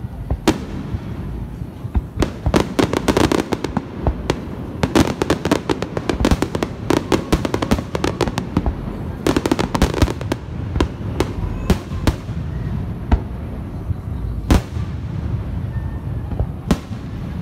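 Aerial fireworks shells bursting overhead in a continuous run of bangs and crackles. Dense rattling crackle comes in clusters through the first ten seconds, and a single strong bang falls about two-thirds of the way through.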